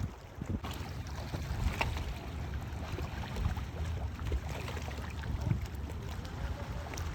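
Wind buffeting the microphone over water lapping against a kayak hull, with scattered light knocks.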